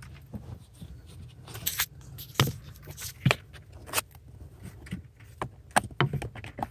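Scattered, irregular clicks and taps of small metal and plastic parts being handled at a car's accelerator pedal mount, over a low steady hum.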